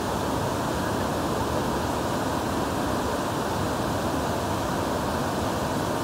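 Mae Ya Waterfall, a tall multi-tiered cascade in full flow: a steady, unbroken rush of water pouring over the rock ledges, heaviest in the low and middle range.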